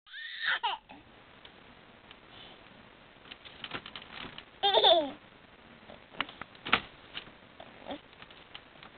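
A nine-month-old baby squeals, once briefly at the start with a falling pitch and once louder with a wavering pitch about halfway through. Scattered light taps and knocks come from his feet kicking a plastic crib soother.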